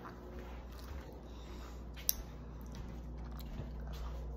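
A person chewing and biting a chewy rainbow candy strip close to the microphone, with small wet mouth clicks and one sharp click about two seconds in, over a steady low hum.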